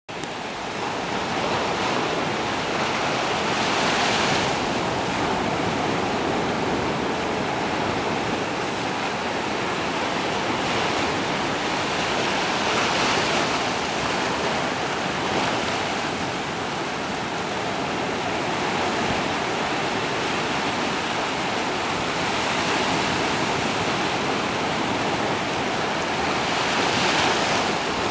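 Surf washing up onto a sandy, rocky shore in a steady rush, swelling louder every several seconds as larger waves break.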